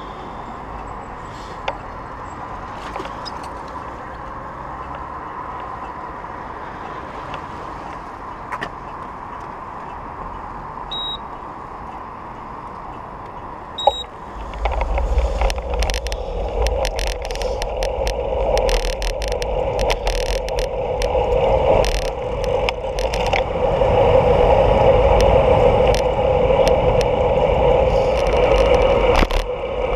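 Steady road-traffic noise while the bicycle waits at a red light, with two short high electronic beeps. About halfway there is a click, then wind buffeting the microphone and the rolling noise of the bicycle grow louder as it pulls away.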